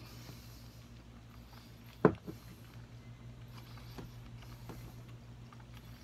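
A person chewing a mouthful of chewy udon noodles with the mouth closed: faint, soft mouth sounds and small ticks over a steady low hum, with one sharp click about two seconds in.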